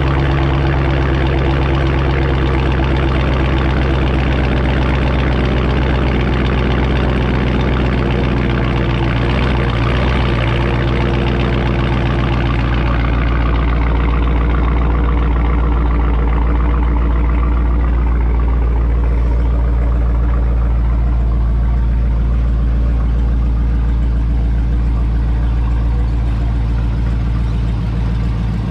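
Dodge Charger Scat Pack's 392 (6.4-litre) HEMI V8 idling steadily through an exhaust with the mid-mufflers deleted.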